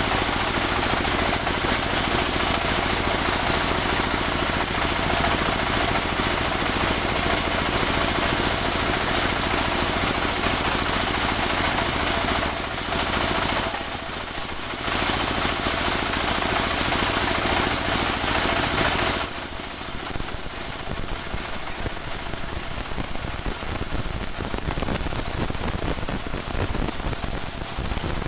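Engine-driven band sawmill running under load as its blade cuts lengthwise through a rain tree (saman) slab: a steady engine drone with a constant high hiss over it. The lower part of the sound thins out about two thirds of the way through.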